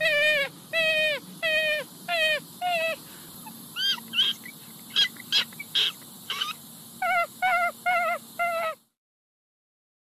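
Raccoon calling: runs of short, wavering, quavering calls, about two to three a second, with a few higher, sharper squeals in the middle.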